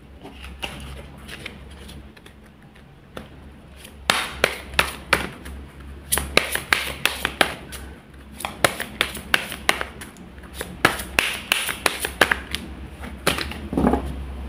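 Light, quick taps or clicks in irregular runs of several a second, starting about four seconds in, over a steady low hum.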